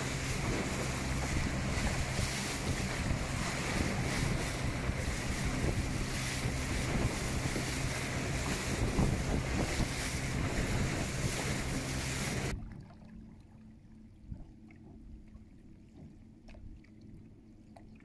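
Wind buffeting the microphone and rushing wake water of a small boat running fast under its electric outboard on choppy sea, with a steady low hum underneath. About twelve seconds in it cuts off suddenly to much quieter faint water sounds with a few small ticks.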